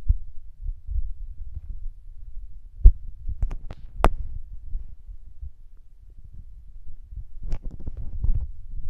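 Low rumbling and irregular thumps of a handheld camera microphone being jostled while walking, with two sharper clicks about three and four seconds in and a flurry of small knocks near the end.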